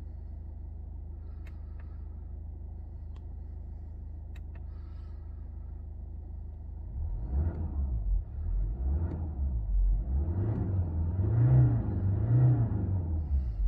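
BMW 520d's 2.0-litre four-cylinder turbodiesel idling steadily in park, heard from inside the cabin. About halfway through it is revved in about five rising-and-falling blips, the last two the loudest.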